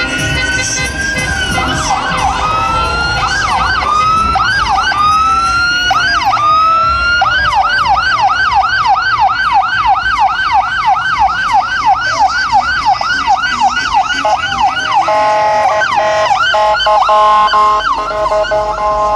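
Several vehicle sirens sounding together, overlapping slow rising and falling wails that turn into a fast yelp of about four cycles a second. About 15 seconds in they give way to steady honking car horns held at several pitches.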